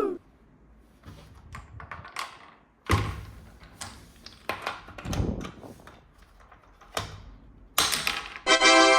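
Plastic toy pieces and packaging being handled: a run of clicks and knocks, with a louder thump about three seconds in. Near the end an electronic toy sound starts, a steady buzzy tone.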